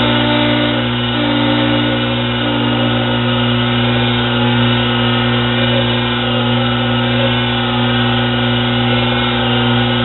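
Small hobby lathe powered by a treadmill motor running steadily with a constant hum and whine, as the cutting bit takes a light facing pass across a nut, peeling off stringy chips.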